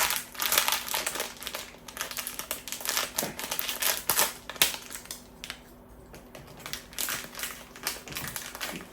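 Blind-box packaging being handled and unwrapped by hand: a run of crinkling, crackling and sharp clicks, densest in the first few seconds and thinning out later.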